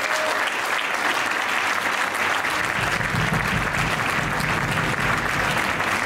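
Audience applauding steadily, with a low rumble joining about three seconds in.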